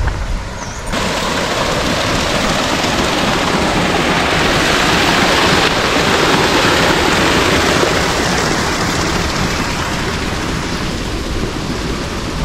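Paddlewheel pond aerator churning and splashing water, a steady rushing noise that sets in about a second in and eases a little over the last few seconds.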